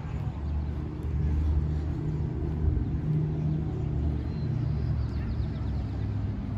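A motor vehicle's engine running close by, a steady low hum.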